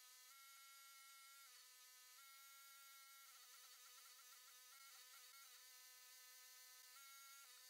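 Near silence with only a faint, steady high buzzing tone that jumps in pitch every second or two and wavers for a couple of seconds in the middle; no welding sound is heard.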